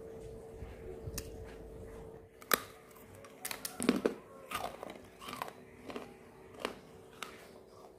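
Crisp swirled kuping gajah cookies cracking and crunching in a run of sharp, separate snaps that begin about two and a half seconds in, the sound of a very crunchy, dry-baked cookie.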